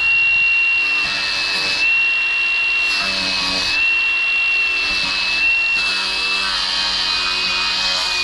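Angle grinder fitted with a sanding pad running with a steady high whine, its pitch sagging slightly each time it is pressed into the wood, over a swelling and fading sanding hiss.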